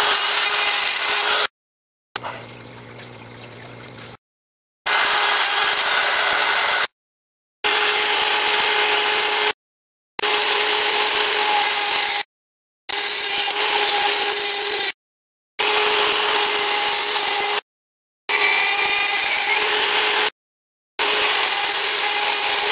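Handheld rotary tool running at high speed with a steady whine, grinding down a plastic part. It comes as a string of clips about two seconds long that cut off suddenly into silence, with one quieter stretch a couple of seconds in where only a low hum is heard.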